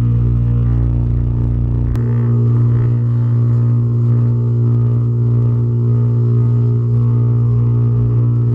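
Electric pressure washer running, its motor and pump giving a loud, steady hum with a fainter hiss of water spray. The low rumble underneath drops away about two seconds in while the hum carries on.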